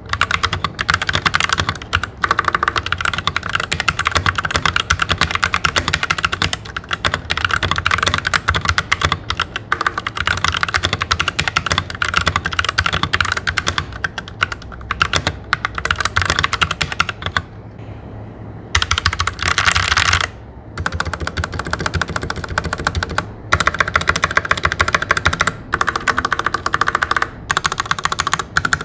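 Fast touch typing on a Royal Kludge RK71 mechanical keyboard: a quick, steady stream of key clacks with a few brief pauses, the longest about two-thirds of the way through.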